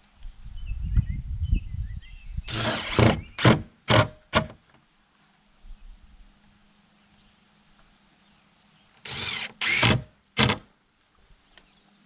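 Cordless drill driving screws into the lower hinge of a wooden door: one run of about a second, then short trigger bursts, and three more short bursts later. A low rumble comes before the first run.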